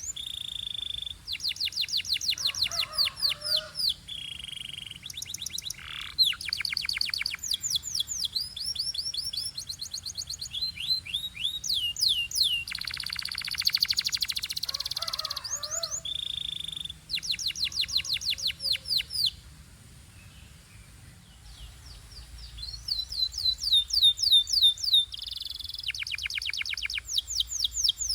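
Domestic canary singing a long song of fast rolling trills, each a rapid run of repeated notes, broken by short clear whistles. The song pauses briefly about two-thirds of the way through, then resumes.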